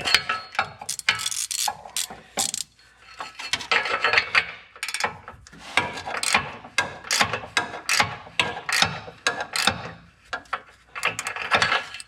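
Ratchet wrench clicking in repeated back-and-forth strokes, turning an O2 sensor socket to tighten an oxygen sensor into the exhaust pipe.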